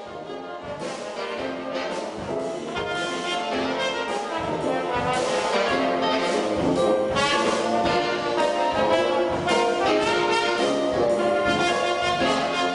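Brass band playing jazz live: saxophones, trumpet, trombones and sousaphone over drum kit and electric keyboard. The music swells in over the first several seconds, then plays on at full level.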